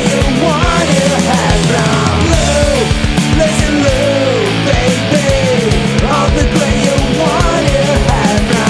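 Rock band recording of drums, bass and electric guitars playing steadily, with a lead melody sliding up and down in pitch over the beat.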